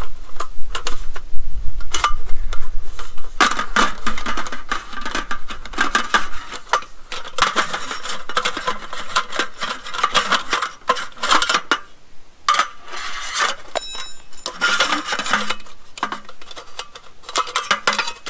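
Thin aluminum slat panels of a GSI Outdoors camp table clattering and clinking as the support sticks are worked out of them and the panels are folded, in bursts with a couple of short pauses.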